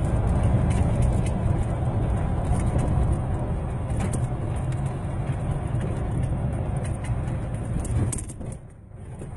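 Golf cart driving along a bumpy dirt road: a steady rumble with small rattles. It quietens briefly near the end.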